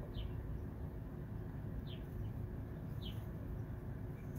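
Mallard ducklings peeping: three short, high, falling peeps about a second and a half apart, over a steady low background rumble.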